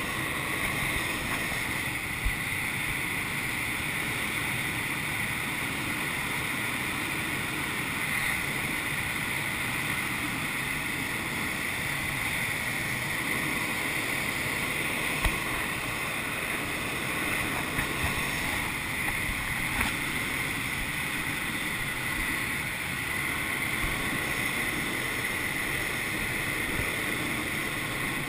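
Steady rush of air over a glider's canopy and fuselage in gliding flight, with no engine, and a few brief clicks from the cockpit.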